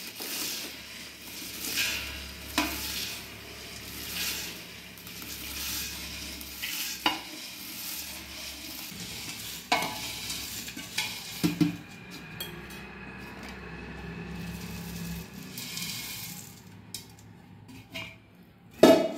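Crisp masala puffed rice rustling and pouring as it is scooped with a spoon from a steel bowl into a steel tin, in repeated scoops, with the spoon scraping and clicking now and then against the steel.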